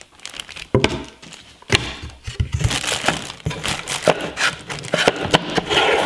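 Clear plastic packaging crinkling and rustling as hands unwrap items in a cardboard box, with irregular crackles and light knocks.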